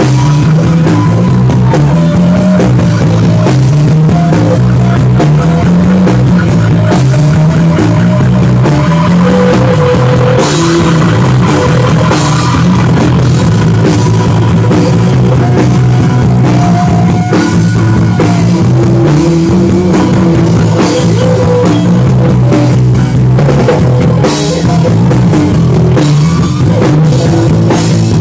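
Live rock band playing an instrumental passage: electric guitar and drum kit over a bass line that steps up and down, with cymbals crashing throughout.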